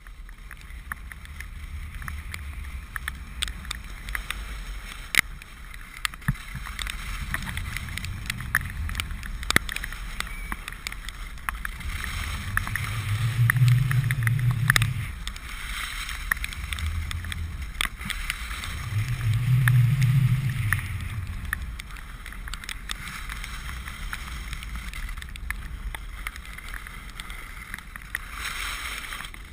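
Wind buffeting the camera microphone and telemark skis sliding over soft, wet snow during a downhill run. Two louder low swells come around the middle, with scattered sharp ticks throughout.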